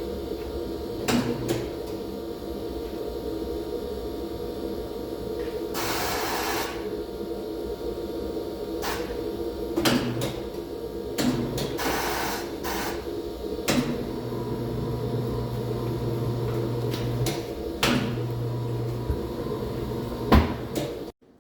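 Tire-mounting work: a steady machine hum with metal clanks and knocks, two short bursts of air hissing, and a motor running in stretches late on. Cuts off abruptly just before the end.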